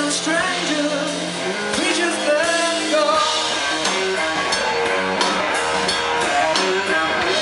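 Live rock band playing, a singer's voice over guitar and drums.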